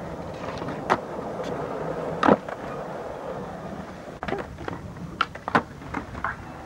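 Skateboard wheels rolling on concrete, with sharp clacks of the board striking the ground and ledge, the loudest a little over two seconds in and a cluster of quicker clacks in the last couple of seconds.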